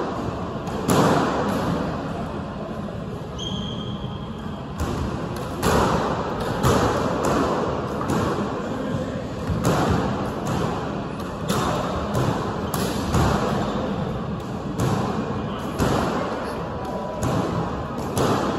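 A squash ball being struck back and forth, with sharp smacks from racket strikes and from the ball hitting the walls and floor. The hits come irregularly, roughly every half second to second, and each rings on in the court's echo.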